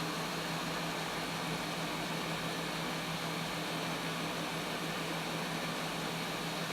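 Hot-air heat gun running steadily: an even rush of blowing air with a low, constant motor hum, as it heats the solder joints of a RAM module's chips.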